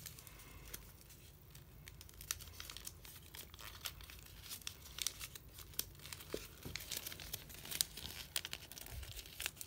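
Origami paper crinkling and crackling in many small irregular clicks as hands fold and crease it.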